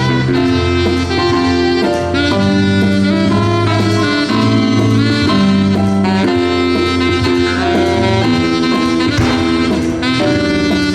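A live jazz band playing, with a melody line over a moving bass line.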